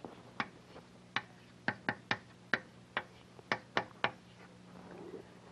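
Chalk tapping and clicking against a blackboard while numbers and symbols are written: about a dozen sharp, unevenly spaced taps over about four seconds, then it stops.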